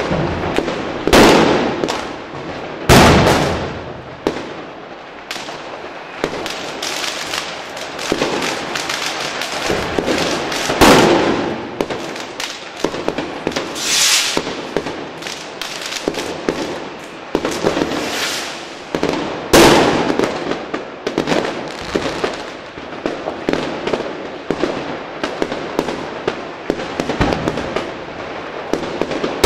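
Fireworks going off: about four very loud bangs, each dying away over a second or two, over continuous crackling and popping of firecrackers.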